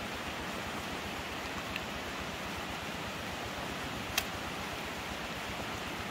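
Steady rushing noise with a single sharp click about four seconds in.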